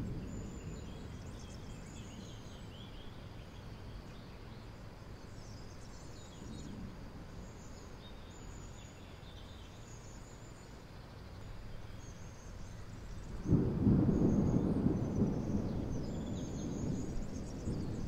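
Thunder: a low rumble fading away, then, about three-quarters of the way through, a sudden loud peal that rolls on and slowly dies down. Faint bird chirps sound high above it.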